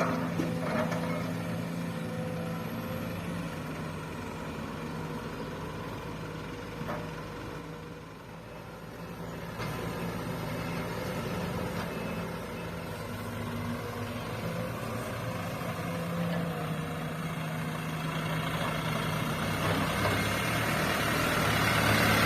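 Heavy diesel engine running steadily, its sound easing about a third of the way in and growing louder near the end.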